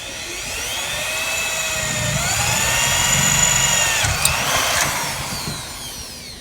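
Power drill running a Milwaukee bit into a hole. The motor's whine climbs in pitch over the first couple of seconds and holds, then winds down in falling pitch after about four seconds, with a sharp click around then.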